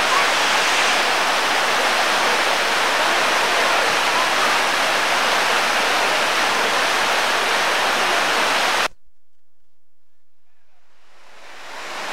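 River rapids rushing steadily. The sound cuts off suddenly about nine seconds in, then fades back up near the end.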